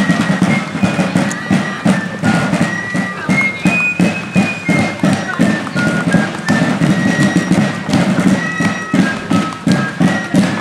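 Colonial fife and drum corps playing a march: drums beating a steady rhythm under a shrill, high fife melody.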